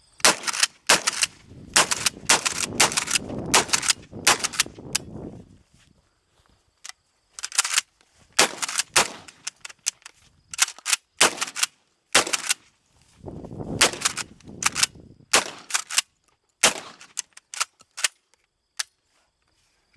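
Kel-Tec KSG 12-gauge pump-action shotgun fired repeatedly, with the sharp clack of the pump being worked between shots. The shooter suspects the low-brass shells make it hang up when cycling.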